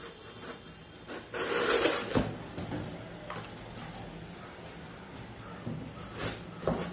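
Corrugated cardboard shipping box being opened by hand: a loud rustling scrape of the cardboard flap about a second and a half in, ending in a sharp knock, then softer cardboard rustles and a few knocks near the end.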